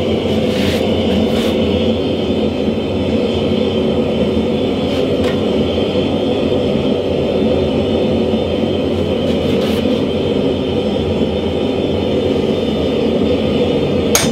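Steady, loud roar of a blacksmith's forge running, with a few faint metal clinks.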